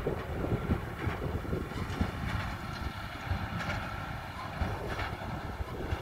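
Tractor-drawn Krone big square baler working in straw, running steadily with repeated knocks about every second and a half, and wind buffeting the microphone.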